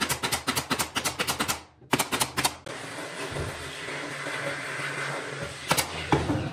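Pneumatic nail gun firing in rapid runs of about eight shots a second into a wooden trim strip, pausing briefly and firing a few more. Then a steady hiss for about three seconds, and one knock near the end.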